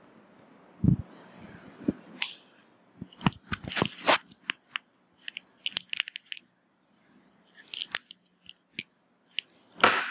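Clicks, taps and rustling from something being handled close to the microphone: a dull thump about a second in, then a scattered run of sharp clicks and rustles, with a louder cluster near the end.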